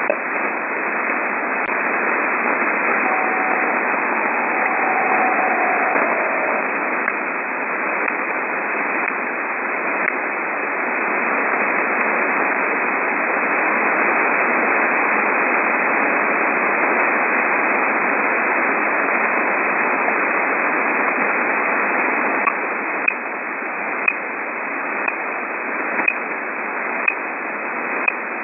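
Shortwave radio receiver hiss with sharp, short pips or ticks. They are scattered at first, then come about once a second near the end, with a faint falling whistle a few seconds in. These are the unidentified random pips heard around 12.9 to 13.2 MHz.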